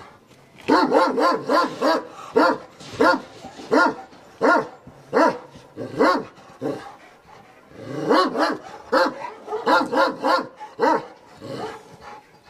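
Kangal dog barking in a long series of short, fairly high barks. It starts with a quick run, slows to about one bark every three-quarters of a second, then speeds up into another quick run near the end before tailing off.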